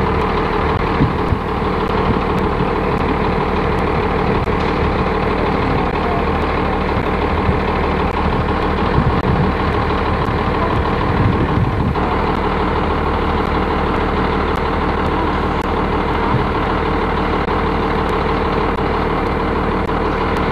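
School bus engine idling steadily.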